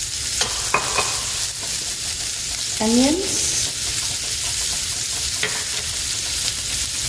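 Browned pork cubes sizzling in hot oil in a tagine base: a steady frying hiss, with a few light clicks as sliced vegetables are dropped into the pan.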